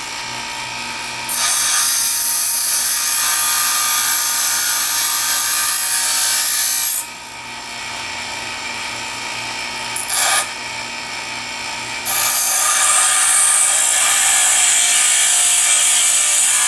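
Small Harbor Freight bench grinder running with a steady hum while the end of a titanium strip is pressed to its wheel, giving a loud, high grinding noise. The grinding comes in two long passes of about six and five seconds, with a brief touch between them.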